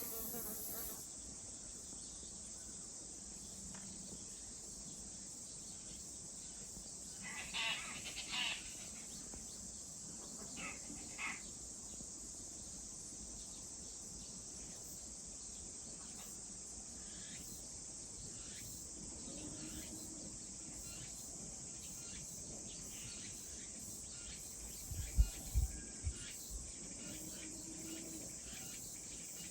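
A steady high-pitched chorus of insects, crickets among them, with a few short bird chirps about eight and eleven seconds in. A cluster of low thumps comes near the end.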